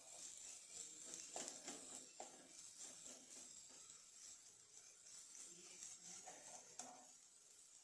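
Steel ladle faintly scraping and knocking against a nonstick pot as diced potato filling is stirred, with a few light scrapes about a second and a half in and again near the end, over a faint steady hiss.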